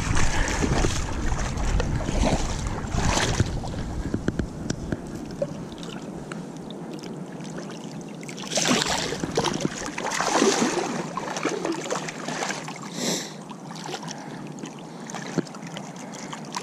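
Shallow river water sloshing and splashing around the legs and hands of someone wading to release a catfish, with louder splashes a little past halfway as the fish is let go.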